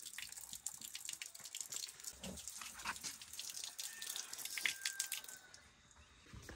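Water running from a tap at the base of a cement water tank and splashing on the ground as a woman washes her hands and face, with irregular splashes and drips that thin out near the end.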